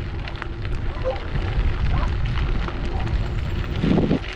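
Bicycle tyres crunching over a gravel road, with wind rumbling on the microphone and a short louder burst near the end.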